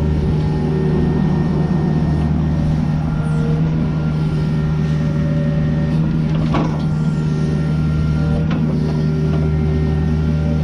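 An engine running steadily at a constant speed, a low, unchanging hum, with a couple of faint clicks in the second half.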